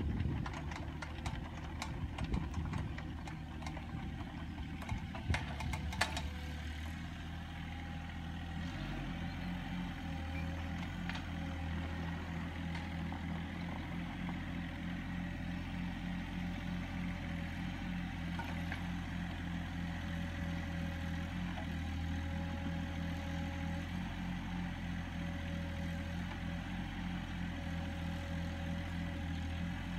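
Mini excavator's diesel engine running steadily. Several sharp clanks and knocks come in the first few seconds.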